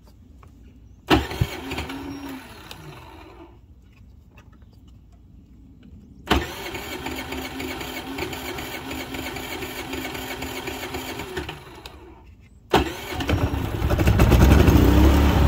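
Predator 3500 inverter generator's 212cc four-stroke engine being started three times. On the first try it fires and winds down within about two seconds. On the second it runs steadily for about five seconds, then stops. On the third it catches and keeps running, growing louder near the end. The start switch is at the full choke position, which the owner says a warm engine does not need.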